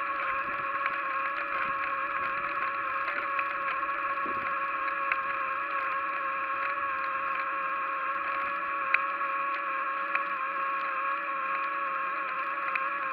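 A steady high whine with overtones, dipping slightly in pitch near the end, with a few faint ticks: the running noise of the bicycle in motion.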